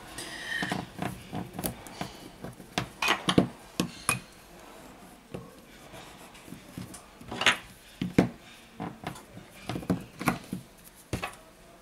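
Irregular small clicks, taps and rubbing from hands handling a removed smartphone battery and a metal tool on a rubber repair mat.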